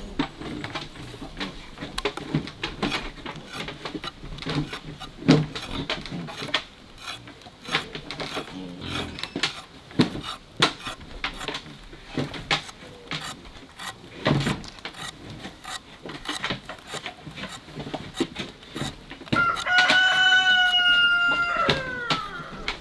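A machete blade scraping and clicking as it peels the skin off a cassava root. About 19 s in, a rooster crows once, a long call that falls away at the end, the loudest sound.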